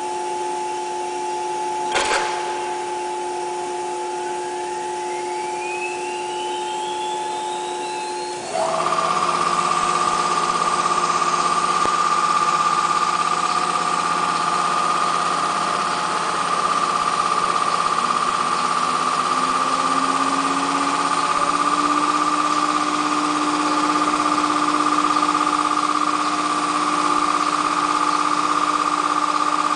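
ATC CNC router processing center running. A sharp click about two seconds in, then a whine rising steadily in pitch as the spindle spins up. About eight seconds in the sound jumps louder into a steady high whine that carries on, with a lower tone rising in pitch and settling around eighteen to twenty seconds in.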